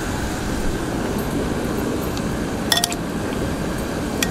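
Chicken sizzling on a hot flat-top griddle, a steady hiss. Metal tongs clink sharply against a glass bowl a couple of times about three seconds in, and once more near the end.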